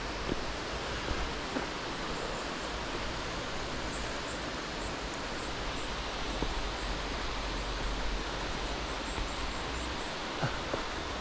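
Steady rushing of a mountain stream's water, an even unbroken noise, with a low rumble underneath and a few faint clicks.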